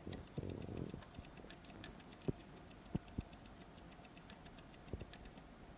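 Small K'Nex plastic figure pieces handled at close range: a brief rustle near the start, then a few light, separate clicks.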